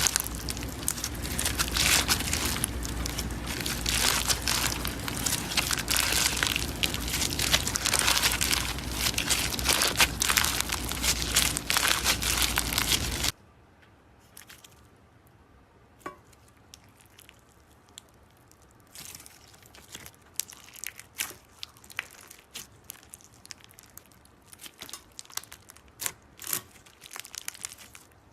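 Slime being squeezed and worked by hand, making dense crackling and crinkling for about thirteen seconds, then after an abrupt cut, softer, scattered pops and clicks.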